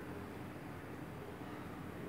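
Steady faint hum and hiss of room tone, with no distinct sounds.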